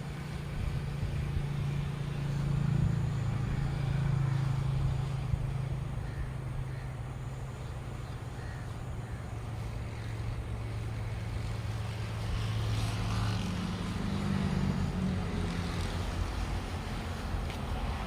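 A motor running steadily with a low, even hum; a slightly higher tone joins it about two-thirds of the way through.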